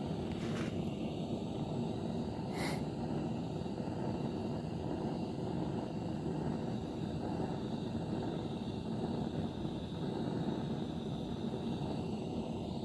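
Gas blowtorch burning steadily as it scorches wooden chest panels, with a brief click about two and a half seconds in.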